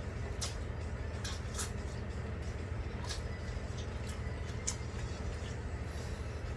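Steady low room hum with a few faint scattered clicks and smacks from people eating noodles.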